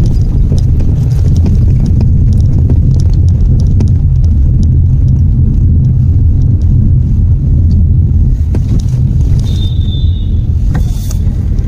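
Steady low rumble of a Citroen C3 Aircross's turbo-petrol engine and tyres, heard from inside the cabin while driving at low speed. A brief high tone sounds about ten seconds in.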